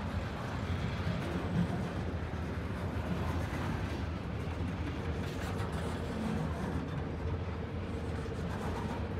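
CSX freight train rolling past with a steady low rumble of wheels on rail. A faint steady whine joins about five seconds in.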